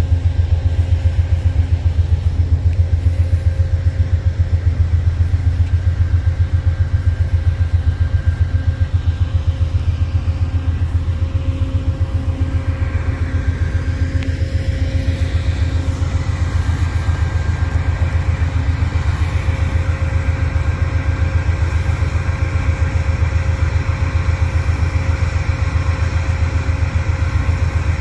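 An engine running steadily: a loud, low throbbing rumble with a fast, even pulse and a faint steady hum above it, with no change in speed.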